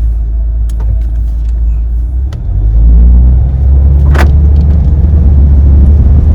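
Honda Brio with a Kakimoto Regu 92dB-Z aftermarket muffler under hard acceleration: the engine and exhaust hum steadily, then about two and a half seconds in swell into a louder, deep bass drone that holds to the end. A single sharp click sounds about four seconds in.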